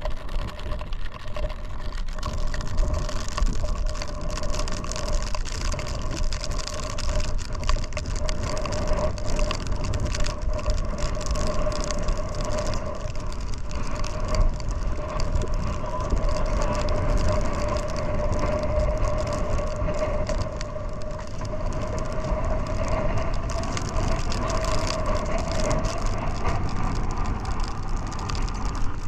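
150-horsepower outboard motor running at a steady speed, with a constant engine tone, over a low rushing of wind and water as the boat moves.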